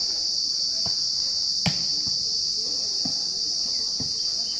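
Steady high-pitched drone of insects from the surrounding trees. About a third of the way in there is a single sharp knock, with a few fainter knocks later.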